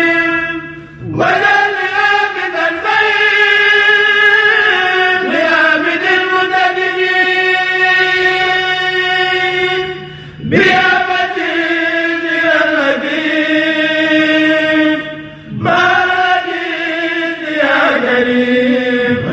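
Mouride kourel choir chanting a xassida in long, drawn-out held notes that slowly bend in pitch. The phrases are broken by short pauses for breath about a second in, around ten seconds and around sixteen seconds.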